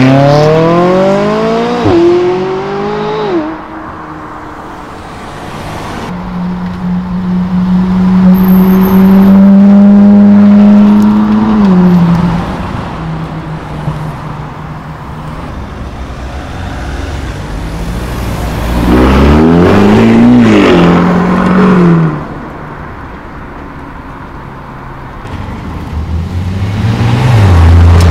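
Several supercars accelerating away one after another. The first revs up hard, with a gear change about two seconds in, and the next holds a loud, steady engine note for several seconds before it drops away. Another revs up and holds for a couple of seconds later on, and a fourth starts revving near the end.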